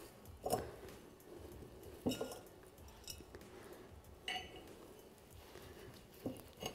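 Faint, scattered taps and clinks as hands press potting soil in around a succulent planted in an iron urn, knocking now and then against the pot.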